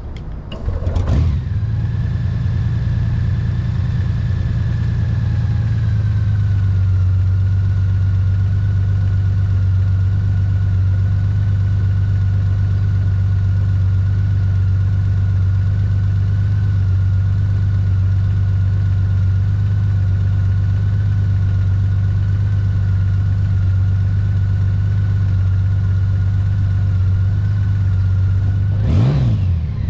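2022 Honda Gold Wing's flat-six engine starting about a second in, then idling steadily. The idle drops a little about six seconds in. Near the end there is a quick rev that rises and falls.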